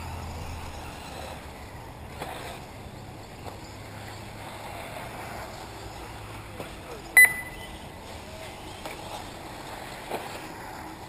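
Electric 1/8-scale RC off-road buggies running on a dirt track, heard as a faint steady whine and rustle, with a short high electronic beep about seven seconds in.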